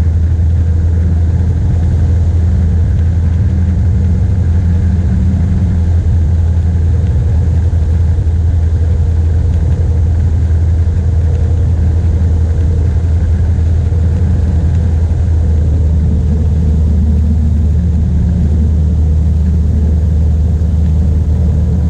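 A light aircraft's piston engine and propeller running steadily at climb power, heard from inside the cockpit as a loud, even drone.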